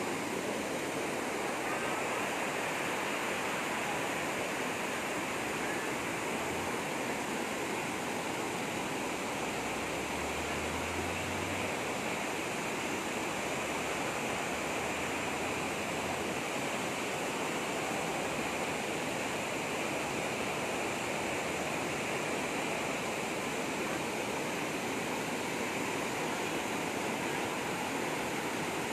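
Fast-flowing water rushing steadily, a strong flow running high after days of rain.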